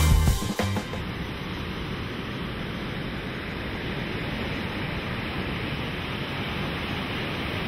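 Steady hiss of ocean surf breaking on the beach, heard after the last of the background music dies away about a second in.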